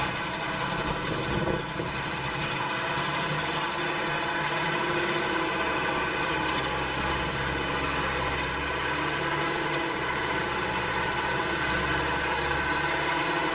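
A farm machine's engine running steadily, an even drone with a brief dip in level near the start.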